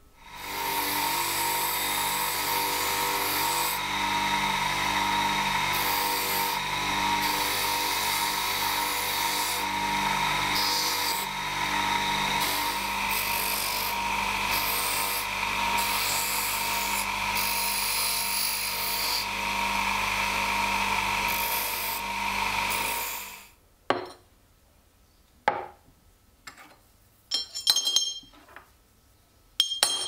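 Bench grinder running, its spinning wheel grinding against a thin piece of a rusty old iron pocket knife: a steady abrasive hiss over the motor's hum, which stops about 23 seconds in. A few short sharp clicks and ringing taps follow near the end.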